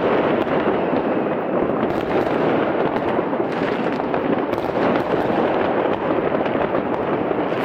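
Many fireworks and firecrackers going off at once, a dense, steady crackle and popping with no single bang standing out.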